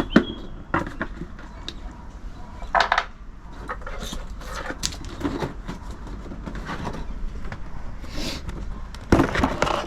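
Irregular clicks and knocks of small parts and tools being handled on a work surface, with a cluster of louder clatter near the end.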